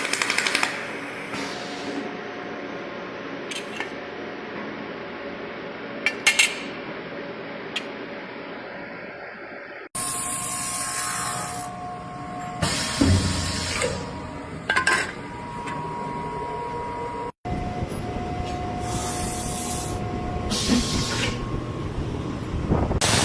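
CNC machine tool cutting metal: a steady whine with held tones over a noisy hiss and a few scattered clicks. The sound changes abruptly twice.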